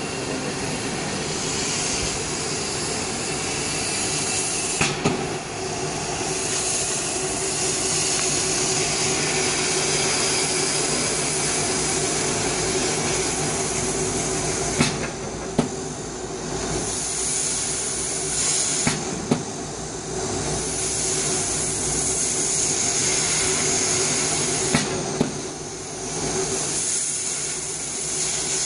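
Laser die-board cutting machine running as it cuts plywood: a steady hiss with a low hum, broken by a few sharp clicks, after which the hiss briefly thins out.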